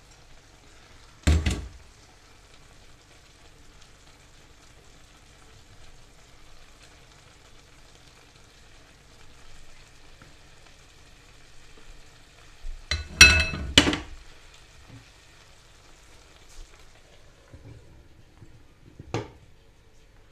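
Meat, potatoes and greens in a frying pan giving a faint, steady sizzle, broken by sharp knocks: one about a second in, a louder cluster of stirring knocks from a wooden spatula around the middle, and a single clack near the end as a glass lid goes on the pan.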